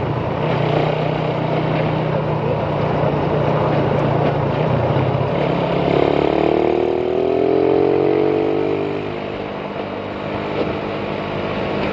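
Motorcycle engine running at road speed from the rider's seat, with wind rush on the microphone. About halfway through a second, higher engine note comes in, falls slightly in pitch and fades out near the end.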